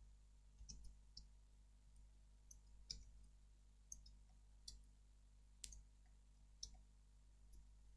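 Faint, scattered clicks of a computer mouse and keyboard, about a dozen irregularly spaced, over a quiet steady low hum.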